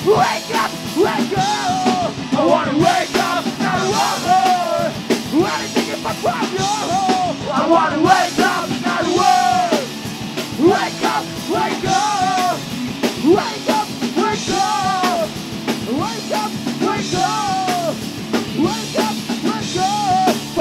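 Rock band playing live: drum kit, electric guitars and several voices singing and shouting into microphones.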